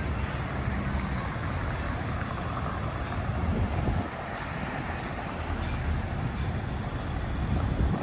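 Outdoor city ambience: a steady low rumble of road traffic, with no single event standing out.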